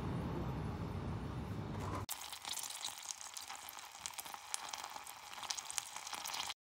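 Low outdoor background rumble for about two seconds, then butter sizzling in a hot pan with brown sugar, a steady hiss full of small pops, which stops suddenly near the end.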